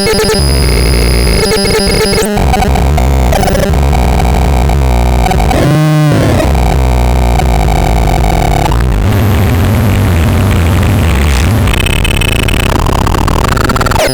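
Torturon C 20 putting out harsh, dense electronic noise mixed with buzzing synth tones, the texture switching abruptly every few seconds. A pitch sweep rises and falls about six seconds in.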